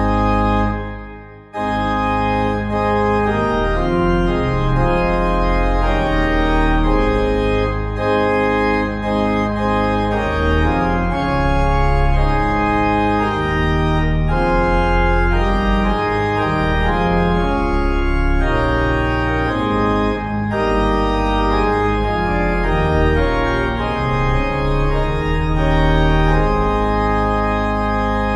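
Organ music playing slow, sustained chords. It breaks off briefly about a second in and starts again.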